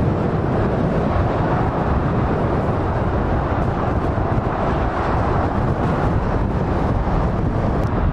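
Steady noise of motorway traffic: lorries and cars passing at speed on both carriageways, their tyres and engines blended into one continuous sound.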